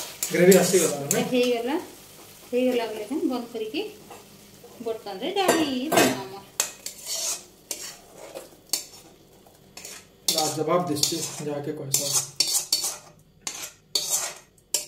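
Spatula stirring a curry in a metal pan, scraping and clinking against the pan, with a light sizzle and some pitched scraping squeaks.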